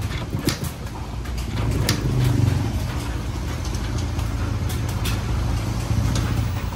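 Engine running with a steady low hum that swells briefly about two seconds in, with scattered sharp clicks and knocks.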